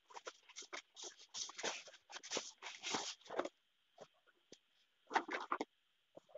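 Cardboard carton flaps rustling and scraping as a shrink-wrapped product box is pulled out of the carton and handled: a dense run of scrapes and crackles in the first half, then a few light rustles and a short burst of handling about five seconds in.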